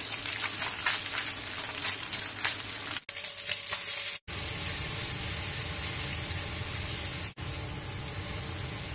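Dried anchovies, aromatics and spice paste sizzling in hot oil in a nonstick wok, with a spatula clicking and scraping against the pan as they are stirred. The frying drops out briefly a few times where the recording cuts.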